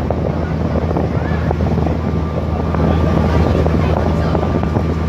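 A boat's engine running with a steady low hum, heard from on board, with wind buffeting the microphone.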